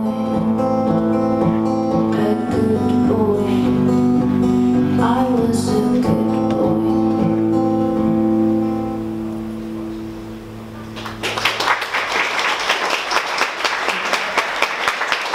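Live acoustic guitar and a woman's singing close a slow song, the last chord ringing and fading out. About eleven seconds in, an audience breaks into applause.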